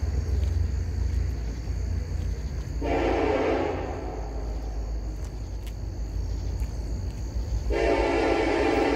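Norfolk Southern freight locomotive horn sounded twice, a blast of about a second and then a longer one near the end, over the steady low rumble of the approaching diesel locomotives.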